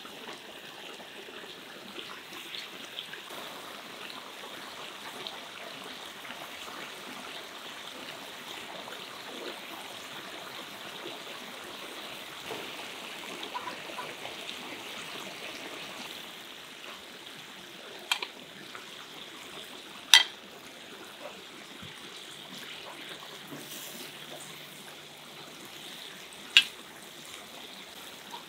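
Plov broth boiling in a cast-iron kazan: a steady bubbling hiss, with a few sharp knocks, the loudest about twenty seconds in.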